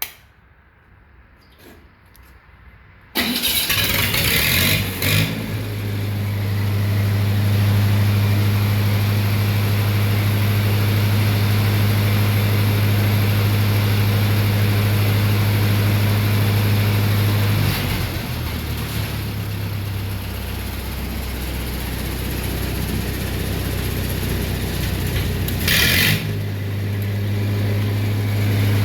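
Lincoln SA200 welder's engine starting with its freshly rebuilt carburetor: it catches about three seconds in and settles into a steady run. Past the middle the engine drops to a lower, slower note, then near the end picks back up to its earlier speed.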